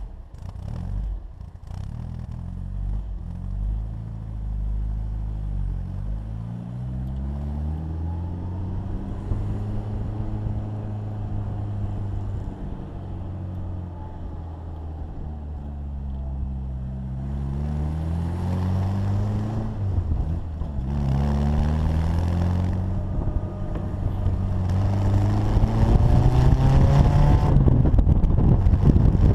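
Austin-Healey Bugeye Sprite's 1275 A-series four-cylinder engine under way, its pitch climbing under acceleration and dropping back at each gear change, several times over. A rushing noise joins during the faster stretches, and the engine gets louder near the end.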